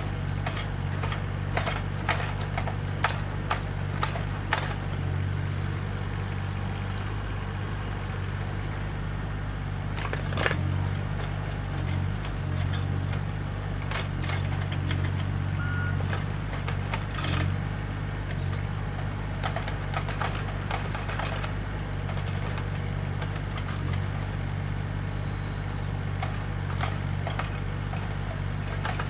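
An engine idling steadily with a low hum, with scattered sharp clicks and snaps over it, the loudest about ten seconds in.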